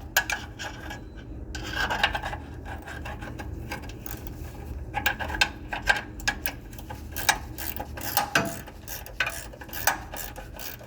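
Hand tools and metal suspension parts clicking, knocking and scraping irregularly.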